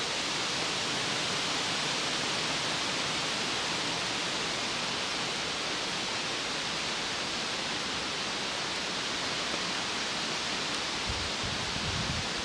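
Steady, even hiss of outdoor background noise with no distinct events. Soft low rustling comes in near the end.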